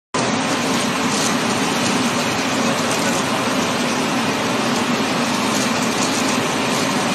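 A power sanding machine running steadily, grinding at the points of a row of pencils held in a jig. It starts abruptly.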